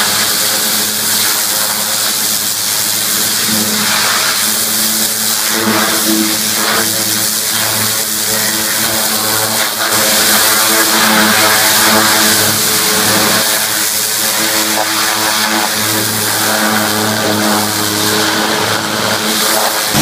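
A high-pressure water jet from a washer lance hissing steadily as it blasts mud off a tank's hull, over a steady engine hum.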